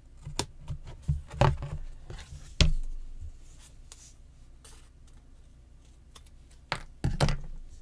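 Scissors snipping a construction strip: a few sharp, separate snips, the loudest about two and a half seconds in and a quick pair near the end.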